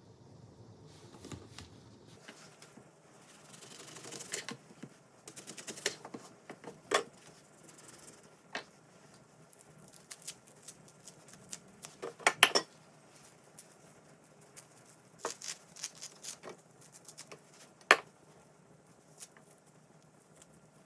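Grapefruit being peeled with a kitchen knife over a wooden cutting board: rind being cut and pulled away, with scattered sharp clicks and knocks of the knife and the rind pieces, sped up to double speed. The loudest is a cluster of clicks about twelve seconds in and a single sharp click near eighteen seconds.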